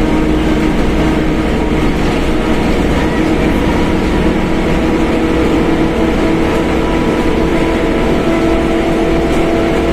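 Mercedes-Benz OF1721 BlueTec 5 bus running, its drivetrain rumbling under a steady, loud whine from the differential.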